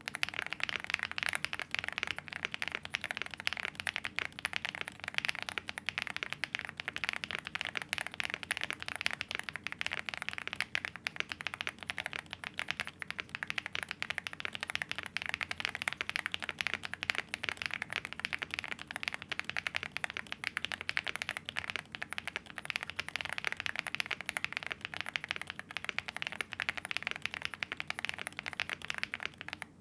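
Fast, continuous typing on a Chilkey ND75 75% mechanical keyboard with Gateron Everfree dopamine linear switches and double-shot PBT keycaps: a dense, unbroken run of keystroke clacks.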